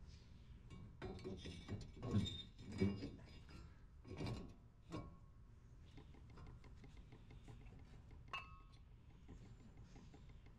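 Light metallic clinks and knocks as brake pads and a brake caliper are handled and fitted over a front disc brake rotor, with one sharp ringing clink about eight seconds in.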